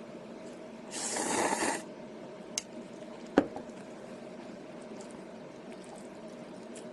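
A short, wet slurp of instant ramen noodles and broth, just under a second long, then a small click and a single sharp knock about two seconds later, over a faint steady hum.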